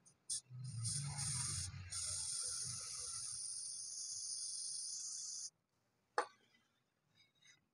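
Aerosol can of metallic gold spray paint spraying into a small cup: two short bursts, then one long steady hiss of about three and a half seconds that cuts off suddenly. A single sharp knock follows about six seconds in.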